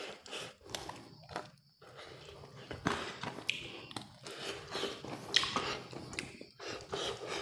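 A person biting and chewing food close to the microphone: irregular crunches and mouth clicks, sparse at first and busier from about two seconds in.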